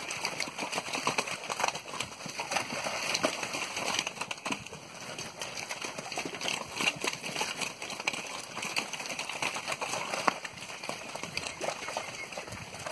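Hooves of a herd of weaned steer calves running past over muddy, trampled ground: many irregular overlapping hoofbeats.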